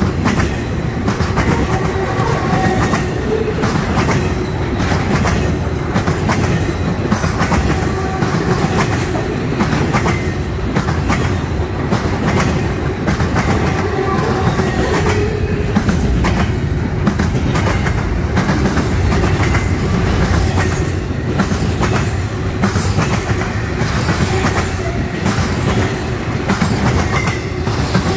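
Empty intermodal freight cars of a Norfolk Southern train rolling past at close range. Their steel wheels give a steady rumble and a running clickety-clack as the wheelsets cross rail joints.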